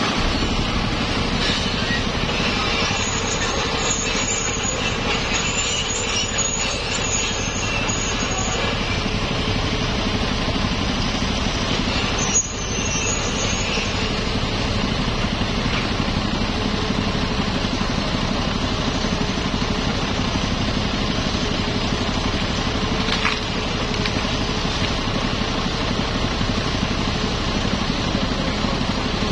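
Hitachi hydraulic excavator's diesel engine running steadily under load as its arm and bucket work against a tree trunk, with a sudden brief break about twelve seconds in.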